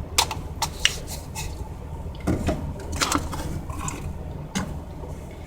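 Food containers and bottles knocking and clattering as they are handled and moved about in a refrigerator, about eight sharp knocks in all, over a steady low hum.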